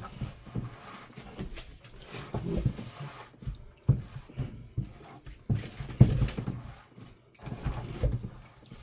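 Hands kneading a raw ground chicken and beef meatloaf mixture, making irregular wet squelches and squishes.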